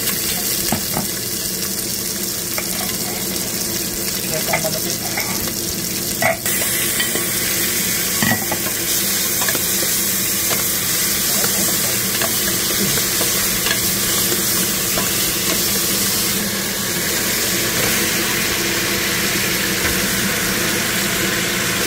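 Pork pieces sizzling and steaming in a steel pot over sliced onion and tomato for sinigang, a steady hiss with a few light knocks in the first half. A steady low hum runs underneath.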